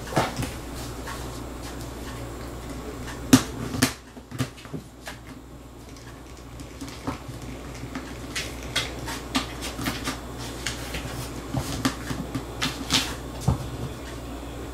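A plastic food container with a red plastic lid being pawed, bumped and shoved by cats on a tile floor: irregular knocks and clicks of paws and claws on the plastic. The two loudest knocks come about three and a half seconds in, followed by a run of lighter clicks.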